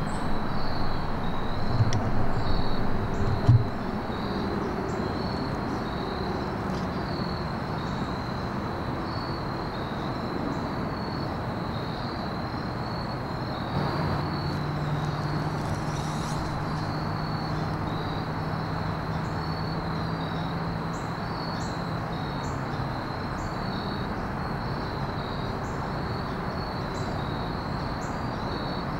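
Insects calling in a steady, evenly pulsing high trill over an outdoor hiss. A few low knocks sound in the first few seconds, and a low steady hum comes in about halfway through and stops about nine seconds later.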